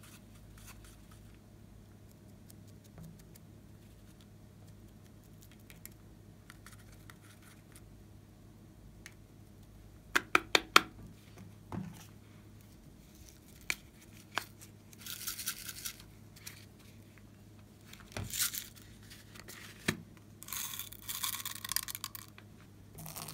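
Faint scratching, then a quick run of sharp clicks about ten seconds in, followed by several short bursts of rattling hiss as glitter and sequins are shaken from a small container onto slime.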